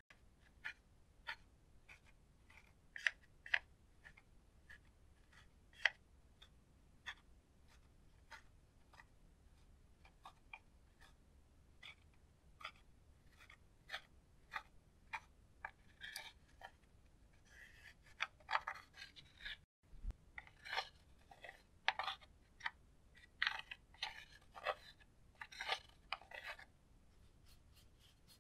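A plastic spatula scraping at and breaking up pressed powder eyeshadow in a makeup compact: a run of short scrapes and clicks that comes thicker and busier in the second half.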